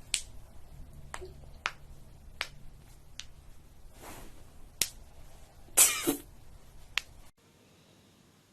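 Joints cracking under a chiropractic back adjustment: about seven separate sharp pops spread over several seconds, with a longer, louder noisy burst about six seconds in. The sound cuts off abruptly a little after seven seconds.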